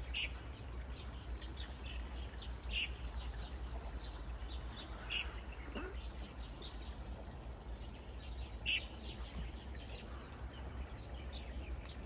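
Outdoor birdsong ambience: single short bird chirps every few seconds over a steady, high, pulsing insect trill, with a low rumble underneath.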